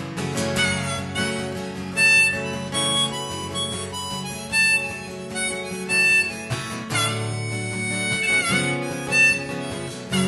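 Instrumental song intro: a harmonica melody of held notes, a few of them bent in pitch, over strummed acoustic guitar.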